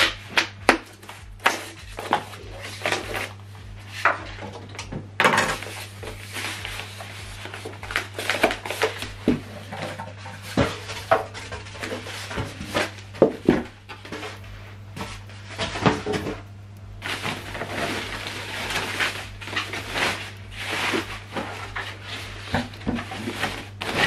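Polystyrene foam packing blocks and a plastic bag being pulled off a boxed subwoofer: irregular rustling, scraping and knocks of packaging being handled, over a steady low hum.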